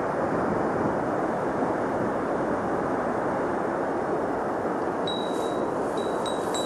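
Mountain stream water rushing steadily. About five seconds in, a high, thin tone sounds in a few short pieces over it.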